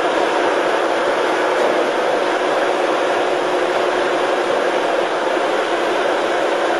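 A crane's engine running steadily, an even drone with no change.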